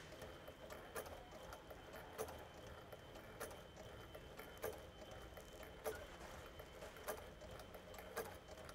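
Sewing machine stitching slowly through a coil zipper and binding, a faint regular click of the needle mechanism about once a second with lighter ticks between.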